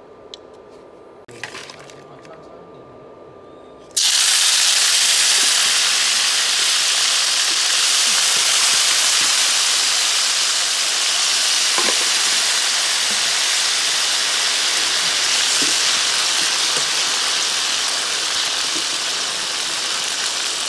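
Rhino beetles frying in hot oil in a pan: after a few faint clicks, a loud, steady sizzle starts suddenly about four seconds in and eases off slowly.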